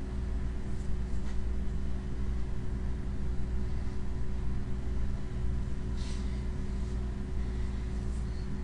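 Steady low hum of room noise, with a brief faint scrape about six seconds in.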